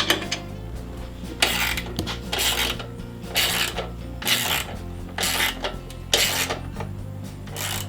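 Socket ratchet wrench clicking in about seven short strokes, roughly one a second, as a bolt on the rear rack is tightened.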